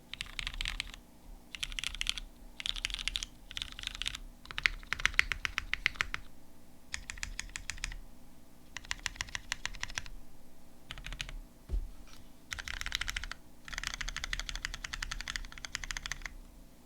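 Typing on a Moment Proto 2 mechanical keyboard with Hyperglide switches on a polycarbonate full plate: fast runs of key clicks in bursts with short pauses, the switches a bit scratchy. There is a single low thud about twelve seconds in.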